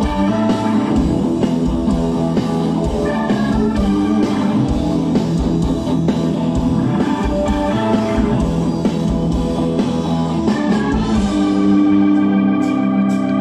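Rock band playing live: electric guitar and drum kit. About eleven seconds in, the drums drop out and held chords ring on.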